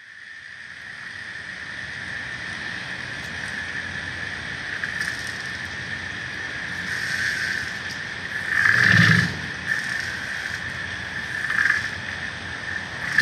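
Water at a floating pontoon pier, heard partly through a hydrophone: a steady high-pitched hum over sloshing water. A louder surge of water about nine seconds in, with smaller ones near the end.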